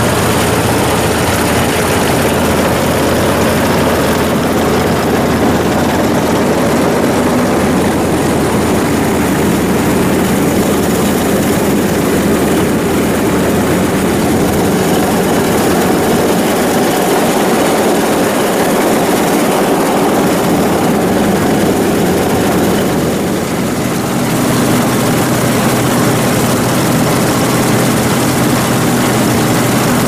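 Combine harvester running steadily as it cuts wheat: a loud, continuous engine drone together with the noise of the header's reel and feed auger taking in the crop. It goes briefly quieter about three-quarters of the way through, then carries on.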